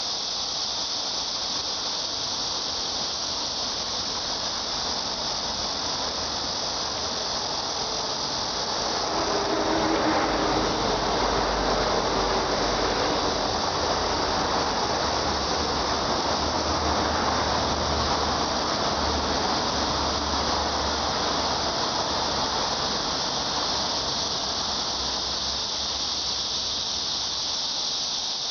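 Cicadas in a steady, high-pitched chorus. About nine seconds in, a low rumble swells beneath it, lasts some fifteen seconds, and fades.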